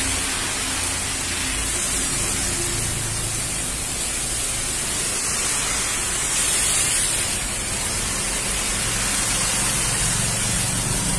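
Steady hiss of heavy rain and tyres on a flooded, wet road, with a low vehicle hum underneath.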